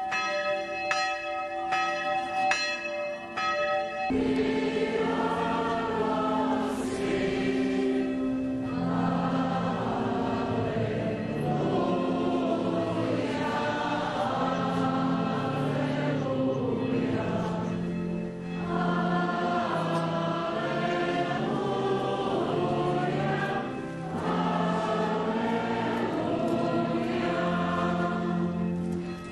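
Bells ringing with repeated strikes, cut off abruptly about four seconds in by a church choir singing a hymn in long, slow phrases with brief pauses between them.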